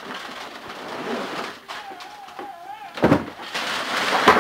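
A child's voice and the knocks and rattle of boxed toys and packaging being handled and set down, with a sharp knock about three seconds in and a louder one near the end.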